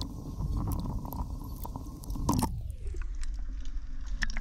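Water sloshing and crackling around a camera held half-submerged at the waterline, with scattered sharp clicks. A little over two seconds in there is a louder splash-like knock, and after it the sound turns duller and muffled as the camera goes under.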